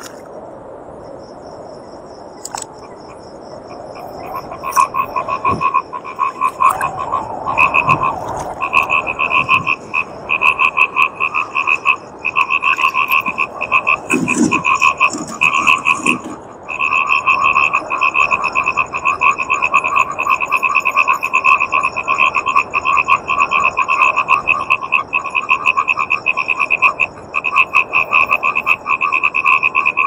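Frogs calling: a rapid pulsing croak that starts about four seconds in and keeps going in long bouts with brief breaks.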